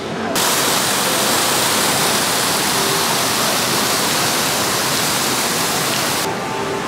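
Indoor fountain: streams of water falling from a height into a shallow pool, a loud, steady splashing rush. It comes in suddenly just after the start and cuts off suddenly near the end.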